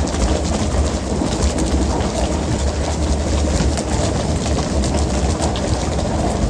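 Fishing boat's engine running with a steady low rumble, under continuous water splashing and a quick irregular clatter of tuna being swung onto the deck during pole-and-line fishing.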